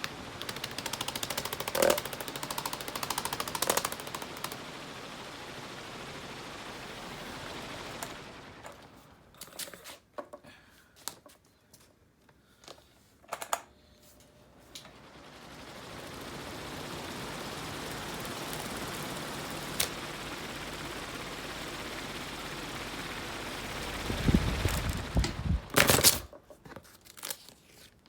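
Fan running with a rapid ticking over its steady air noise. Partway through, the air noise dies away and scattered clicks and knocks are heard. Then the fan noise builds back up and holds steady, and near the end come a few low thumps and clicks.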